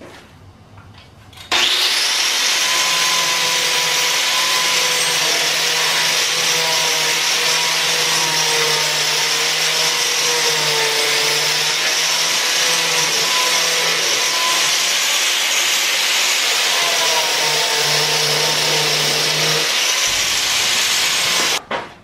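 Angle grinder with a diamond tuck-pointing blade cutting slots into a brick: it starts about a second and a half in, runs steadily with its pitch wavering slightly as it cuts, and stops just before the end.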